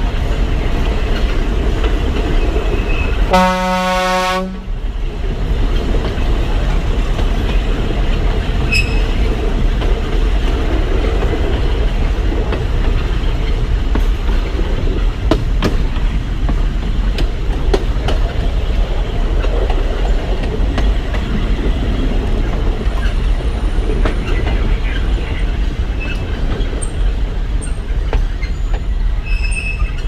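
DL-41 diesel locomotive of a narrow-gauge forest railway running steadily along the line, with a single horn blast a little over a second long about three seconds in.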